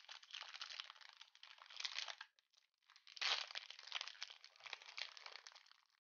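Crinkly green wrapper being crumpled and peeled off a small Funko Pop figure, with faint crackling in two stretches, a brief pause about two seconds in, and the loudest crinkle just after three seconds.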